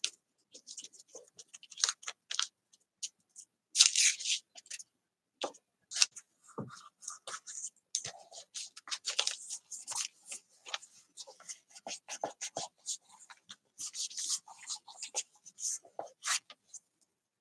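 Paper rustling and scratching in short, irregular strokes as a cut-out of patterned paper is handled, laid on a journal page and smoothed down by hand.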